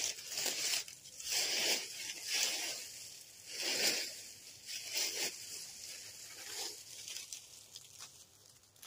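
Rustling and crinkling handling noise: about six short swishes roughly a second apart, growing fainter near the end.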